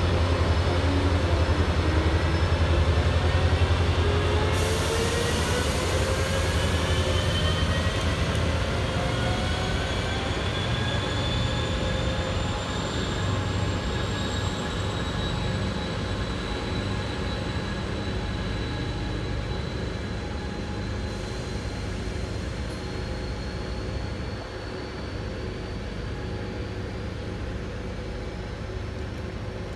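Siemens SC-44 Charger diesel-electric locomotive pushing a passenger train away from the station: a deep engine rumble, loudest in the first few seconds, with a whine that rises in pitch as the train gathers speed, then fading as it pulls away.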